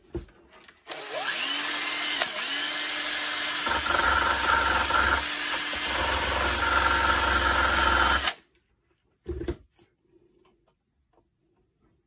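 Drill fitted with a sanding drum, spinning up and then sanding the fibreglass fuselage of a model glider. Its motor tone dips a couple of times early on, the grinding grows heavier once the drum bites into the surface, and it stops about two-thirds of the way through. A short knock follows.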